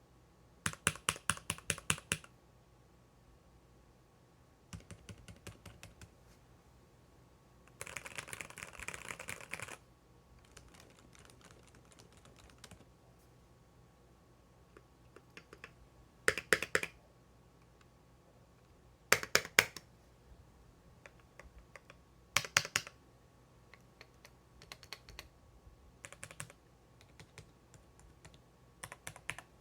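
Typing on a Keychron V1 mechanical keyboard: runs of fast keystrokes broken by short pauses, some runs much louder and denser than others.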